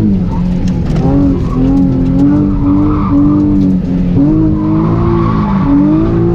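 Car engine revving hard during a drift, its pitch dropping and climbing again several times as the throttle is worked, with tyre squeal rising and falling beneath it.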